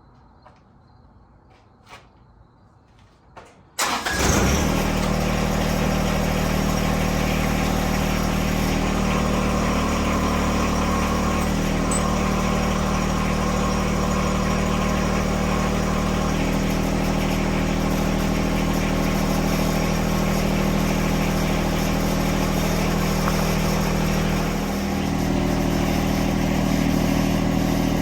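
John Deere 1026R compact tractor's three-cylinder diesel engine starting abruptly about four seconds in after a few faint clicks, then running steadily, with a brief dip in level near the end before it settles slightly higher.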